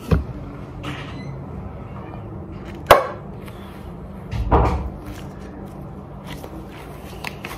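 A sharp tap about three seconds in and a dull thump about a second and a half later, over a low steady hum.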